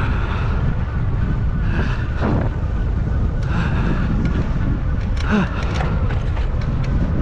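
Wind buffeting the microphone of a camera on a moving e-bike, a heavy steady rumble, with tyre noise on the dirt trail and a few sharp rattles from bumps about five seconds in.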